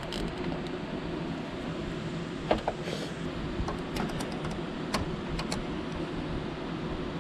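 Small sharp clicks and handling noise of a plastic zip tie being worked on a roof-rack cable and its tail snipped with scissors, a few clicks scattered through, over a steady low hum.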